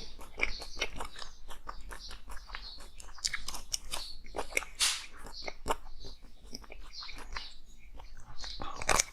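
Biting and chewing frozen ice: a dense run of crackling crunches, with a few louder bites about halfway through and near the end.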